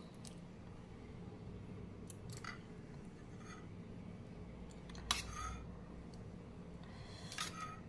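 A steel spoon clinking and scraping against a steel bowl and a plate while curd is scooped out and spread, a few faint light knocks with the loudest about five seconds in, over a low steady hum.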